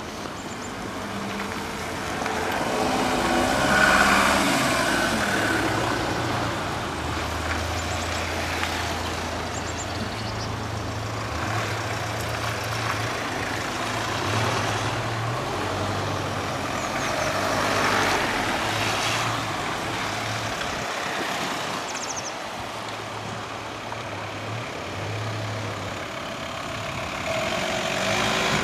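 Police vans driving slowly past one after another on a muddy dirt track, engines running and tyres rolling. It swells loudest about four seconds in and again around eighteen seconds as vehicles pass close.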